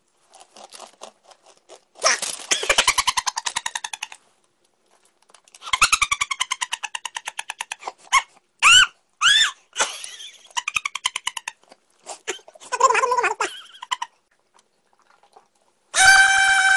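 A young man's wordless cries and yelps as wasabi stings his mouth: strained vocal bursts, a few sharp rising-and-falling yelps about eight or nine seconds in, and a loud, held open-mouthed cry near the end.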